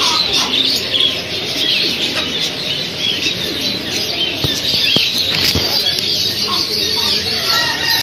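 A dense chorus of many caged birds chirping and calling at once, a steady twittering made of short high chirps overlapping throughout, with a few brief clicks in the middle.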